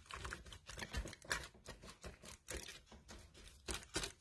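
Gloved hands mixing and pressing raw ground-meat loaf mixture in a loaf pan: soft, irregular pats and squishes, a few each second.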